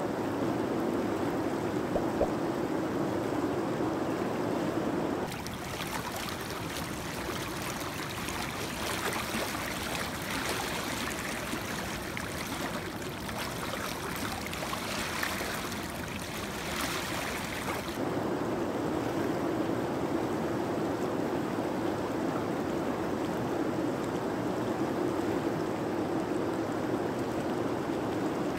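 Shallow river riffle rushing steadily. For a stretch in the middle the rush sounds brighter and hissier.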